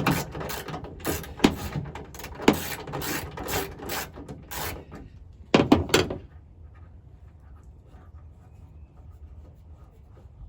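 Ratchet wrench clicking and rattling irregularly as a tail-light bolt is worked loose, stopping about six seconds in.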